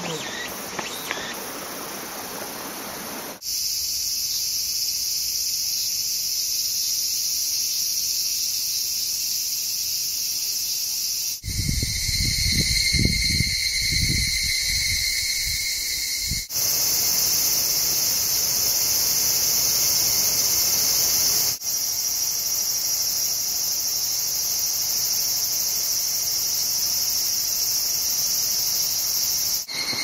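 Cicadas singing in dense summer choruses, a steady high-pitched buzz heard in several recordings cut one after another, so the pitch and texture of the chorus change suddenly a few times. A low rumble runs under it for about five seconds in the middle.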